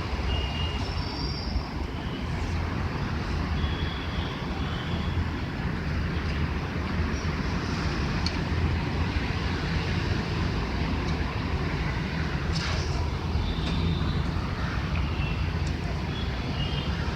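Steady low rumble of background noise, with a few short high squeaks here and there.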